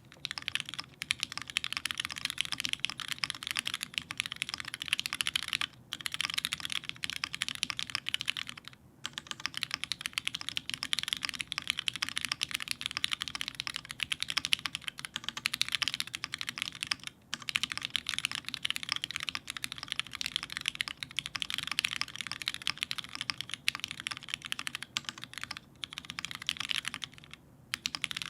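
Continuous fast typing on a mechanical keyboard with lubed Cherry MX Red linear switches on an aluminum plate, a rapid stream of key clacks broken by short pauses about 6, 9, 17 and 27 seconds in.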